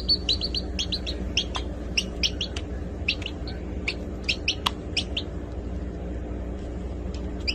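A small bird chirping: quick, short, high chirps, many in the first five seconds and only a few after. A steady low hum runs underneath.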